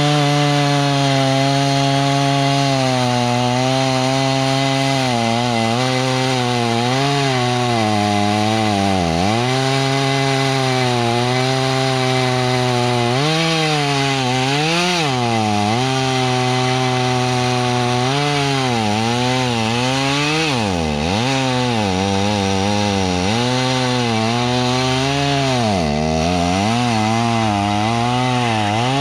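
Tractor engine driving a Woodland Mills WG24 PTO stump grinder under load. The engine's pitch sags and recovers again and again as the cutter wheel bites into the stump, over a steady rough grinding hiss.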